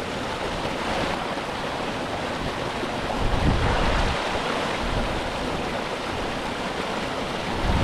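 Small moorland waterfall rushing steadily, with wind buffeting the microphone in low rumbling gusts about three seconds in and again near the end.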